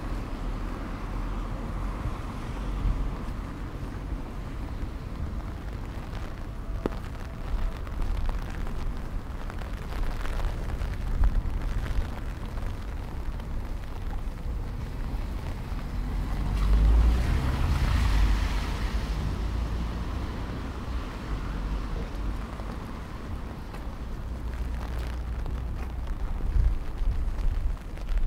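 Strong gusting wind buffeting the microphone, a low rumble that rises and falls, with one louder gust swelling a little past halfway.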